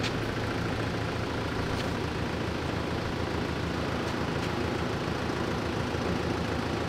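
Forklift engine idling steadily with an even low hum.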